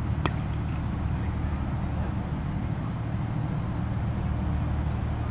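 A cricket bat striking the ball once, a single sharp crack about a quarter second in, over a steady low rumble.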